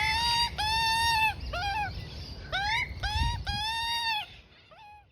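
Juvenile Australian magpie giving a rapid run of whining begging calls while being fed. Some calls are rising and held, others short, and they grow fainter and stop near the end.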